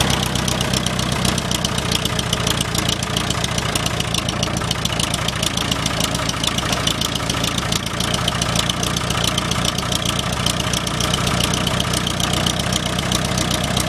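International TD-6 crawler dozer's diesel engine idling steadily with an even rapid knock, running just after a hard cold start following more than a year of standing.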